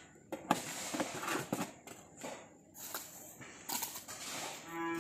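Scattered light knocks and scrapes, then near the end a cow starts a long, steady moo.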